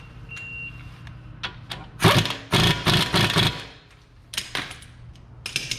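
Brake caliper bolt being spun in with a tool: a quick run of about six loud, harsh bursts, roughly three a second, starting about two seconds in, then a few shorter clicks near the end.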